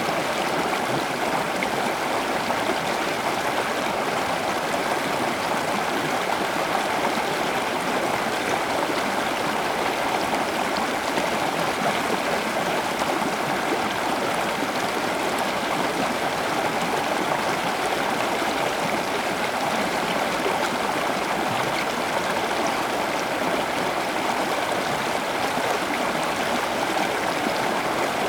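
Steady running water, like a stream or trickling water feature, unchanging throughout.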